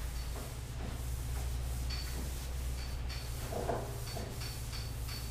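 A hand trigger spray bottle squirting degreaser and a cloth wiping over a Land Rover bonnet panel: a string of short squirts and rubbing strokes, with one louder scrape about three and a half seconds in. A steady low hum runs underneath.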